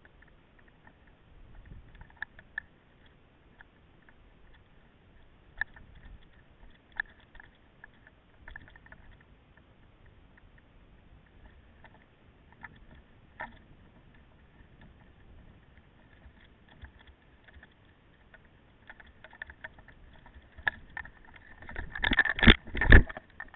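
Mountain bike rattling over a rough track: scattered clicks and knocks, with a quick cluster of much louder knocks near the end.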